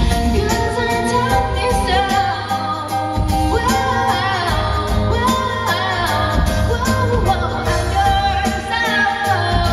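A female singer singing an English pop song live over a band accompaniment with a steady beat, played through a stage PA.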